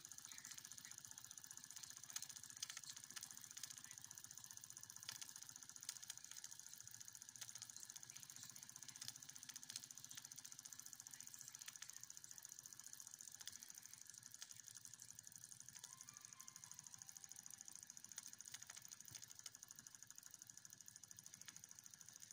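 Wilesco D2 miniature steam engine running, its spring-loaded oscillating brass cylinder giving a faint, rapid, even ticking as the flywheel spins at speed.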